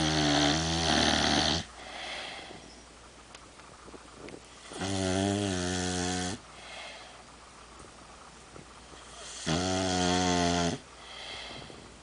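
An overweight pet dog snoring in its sleep: three long, loud pitched snores come about every four and a half to five seconds, with softer, quieter breaths between them.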